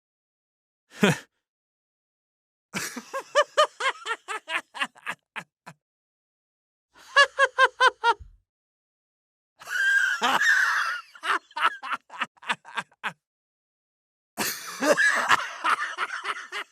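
A string of separate recorded human laughs, each cut off into silence before the next: quick runs of ha-ha-ha pulses at about four a second, from different voices, one of them breathier and noisier.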